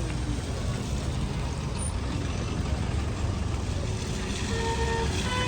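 Road traffic in heavy rain: a steady wash of noise over a low engine rumble from passing vehicles. A few short steady tones sound near the end.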